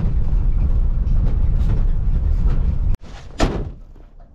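Vehicle driving: a loud, steady low rumble of engine and road noise that cuts off suddenly about three seconds in. A single brief scrape follows.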